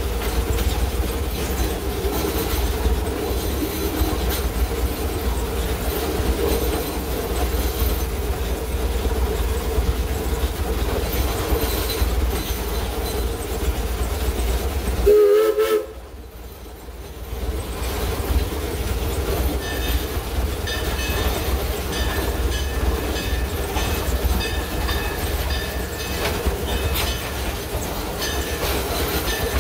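Narrow-gauge steam locomotive running, heard from inside its cab: a steady rumble with the clatter of wheels on rail. About halfway through there is a brief loud pitched sound, and then the noise drops sharply for a couple of seconds before it returns.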